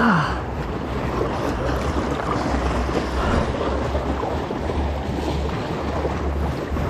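Wind buffeting the microphone in an uneven low rumble over the wash of water around a kayak. A short, louder sound with a falling pitch comes right at the start.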